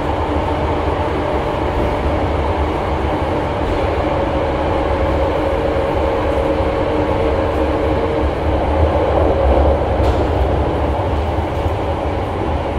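Hankyu 5300 series resistor-controlled electric train running, heard from inside the passenger car: a steady rumble with a humming tone, part of which drops away about eight seconds in.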